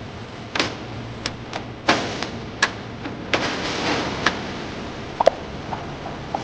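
Factory machinery running with a steady background noise, broken by irregular sharp clicks and knocks, some with a short ring.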